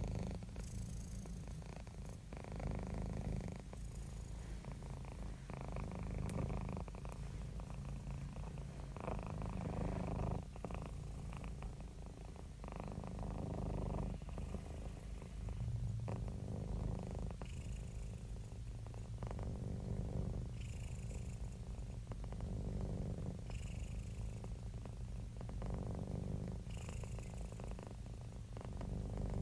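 Domestic cat purring close to the microphone, a continuous low rumble that swells and eases in a slow rhythm every two to three seconds.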